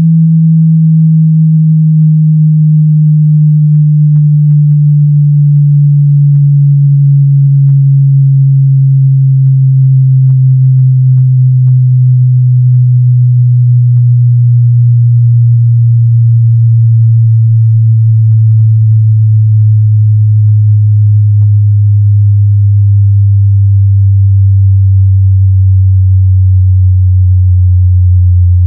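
Loud, low synthesized sine tone gliding slowly and steadily down in pitch, by nearly an octave, with faint scattered ticks above it.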